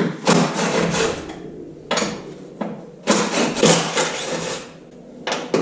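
Tool work on a car body as a part is worked loose: several bursts of rapid rattling and knocking, the longest about a second and a half, with short pauses between.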